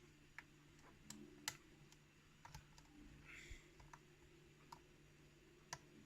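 Faint, irregular clicks of a lock pick working the pins inside a pin-tumbler challenge lock held under heavy tension, with the pick tip ticking against pins and the core.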